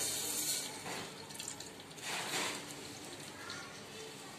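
Cooking oil poured in a thin stream into an empty metal pressure cooker, giving a splashing hiss at the start and again about two seconds in.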